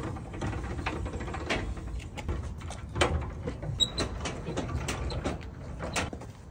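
Irregular metallic clinks and clanks of a trailer's steel safety chains and tongue hardware being handled at a pickup's hitch, the loudest knock about three seconds in, over a low rumble.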